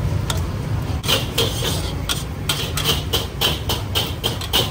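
A quick series of sharp knocks or clinks, about four a second, starting about a second in, over a low steady rumble.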